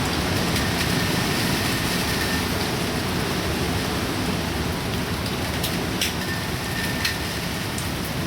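Typhoon rain pouring steadily, with a few sharp ticks of drops striking.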